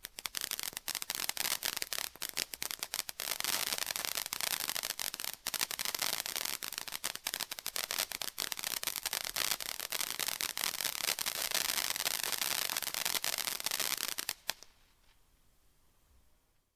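Cranky Cactus ground firework battery (Bodenfeuerwerk) going off: dense, continuous crackling and rapid popping for about fourteen seconds that cuts off suddenly, leaving only a faint hiss.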